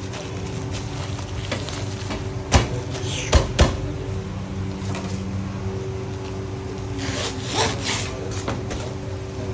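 Kitchen food-prep handling noises: three sharp knocks, two of them close together, then some scraping and rubbing, over a steady machine hum.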